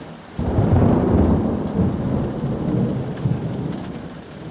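Thunder from a close thunderstorm: a loud rumble breaks in suddenly about half a second in and rolls on, slowly fading, arriving about four seconds after the lightning flash that was counted off. Rain falls steadily underneath.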